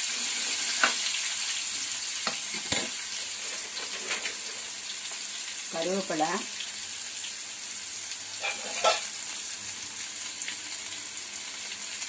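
Boiled chickpeas stir-frying in hot oil with a mustard-seed, urad dal and red chilli tempering: a steady sizzle, with the spoon knocking against the pan a few times.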